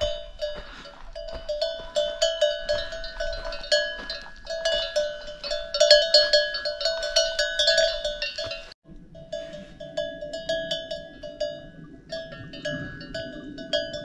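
Metal livestock bell on grazing animals clanking irregularly, many quick strikes with a ringing tone. After a brief break about nine seconds in, the ringing goes on over a low rumble.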